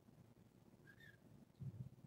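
Near silence: room tone, with one faint short high chirp about a second in and a few soft low thumps near the end.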